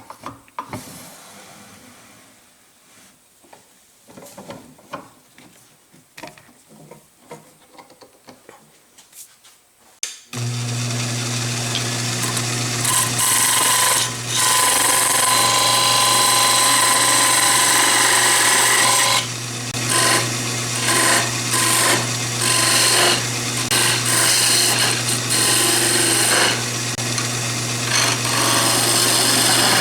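Wood lathe (a Conover) with a few faint taps at first; about a third of the way in its motor starts and runs with a steady low hum. A turning tool then cuts the spinning chair-leg blank with a loud, continuous shaving hiss, breaking off briefly several times as the tool is lifted from the wood.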